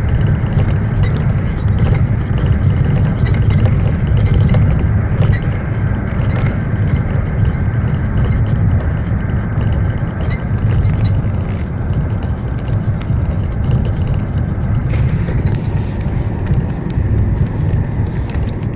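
BMW E38 on the move, with steady low road and tyre rumble in the car and many small knocks and clicks over it: the knocking of worn rear shock absorber top mounts.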